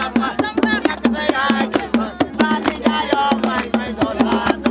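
Music with fast, dense hand-drum strokes under a wavering melody line.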